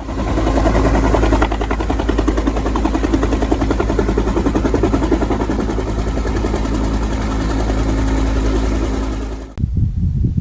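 Airbus H135 twin-turbine helicopter running close by, a steady engine sound with a rapid rotor beat. About half a second before the end it cuts off abruptly and a rougher rotor sound takes over.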